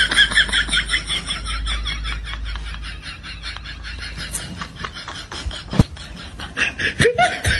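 High-pitched laughter in quick rhythmic pulses, fading away over the first few seconds. A couple of sharp clicks come later.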